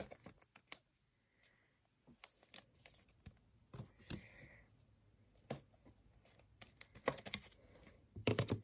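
Faint scattered clicks and light rustles of trading cards in plastic sleeves being handled, with a quick run of louder clicks near the end.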